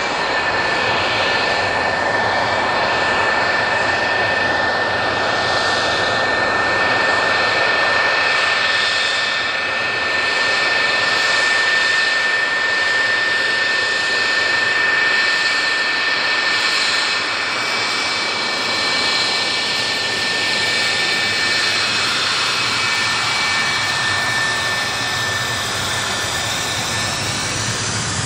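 F-4 Phantom's twin General Electric J79 turbojets running at taxi power: a loud, steady jet whine with a constant high-pitched tone over a rushing noise.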